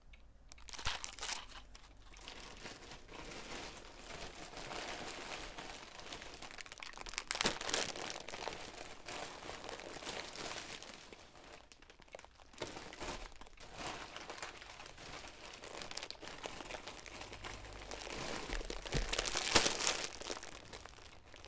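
Haul bags and packaging crinkling and rustling as items are rummaged through, with louder bursts about a third of the way in and again near the end.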